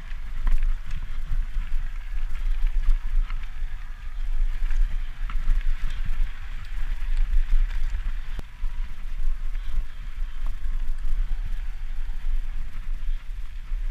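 Mountain bike rolling over a rocky dirt trail: tyres crunching on gravel, with scattered clicks and rattles from the bike and a steady low wind rumble on the microphone.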